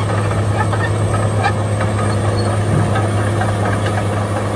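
Komatsu D65EX crawler bulldozer's diesel engine running steadily under load as it pushes dirt, with a few light clanks.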